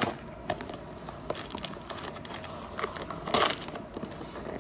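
Crinkling and rustling of takeout food packaging being handled, with scattered small clicks and a louder rustle about three and a half seconds in.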